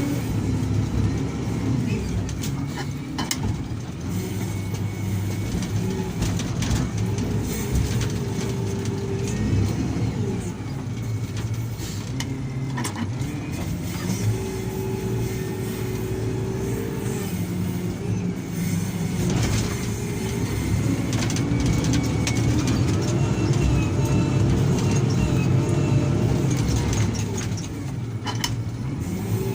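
Diesel engine of a heavy earthmoving machine running under varying load, its pitch rising and falling as it works, with a few sharp knocks.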